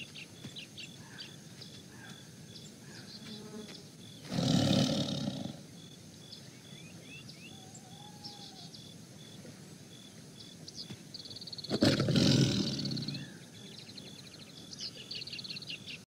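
Tiger roaring twice, about seven seconds apart, over a background of birds chirping.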